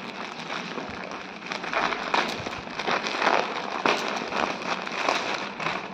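Clear plastic garment bag crinkling and crackling as it is handled, twisted and pulled open by hand, with many irregular sharp crackles.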